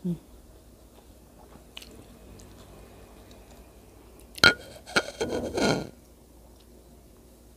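Quiet chewing of sushi with sambal; about four and a half seconds in, a sharp click followed by about a second of clattering and scraping.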